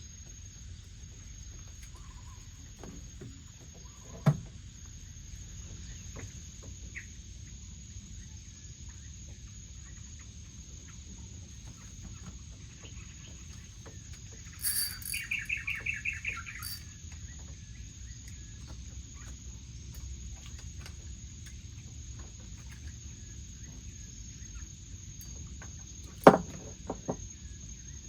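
Outdoor ambience with a steady high insect drone. About halfway through comes a short run of rapid bird calls, and there are two sharp knocks, one early and one near the end.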